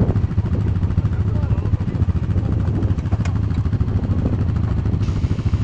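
ATV engine running steadily at low revs, with an even, fast pulsing note.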